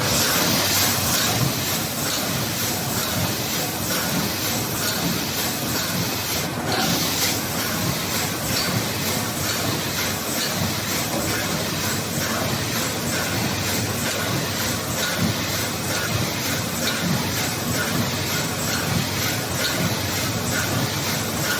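LFC180 high-speed tube filling and sealing machine running in production, a steady, rapid mechanical clatter of many fine clicks.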